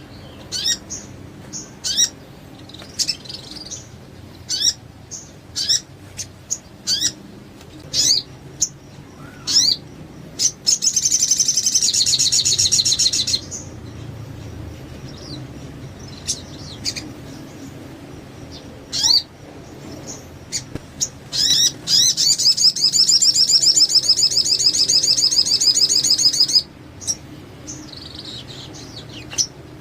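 Crimson sunbird (sogon) singing loudly: a run of short, sharp, high chirps, broken twice by a long, rapid, high trill, the first about two and a half seconds long and the second about five seconds.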